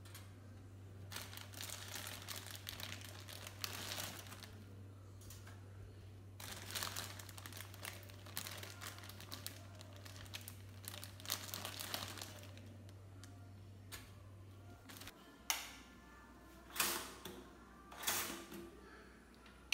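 Plastic bread bag crinkling as slices are pulled out and dropped into a four-slice toaster. Near the end come a few sharp clacks as the toaster's levers are pushed down.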